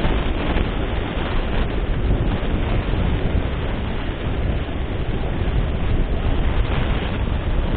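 Wind rumbling steadily on the microphone over the noise of ocean surf breaking on the beach.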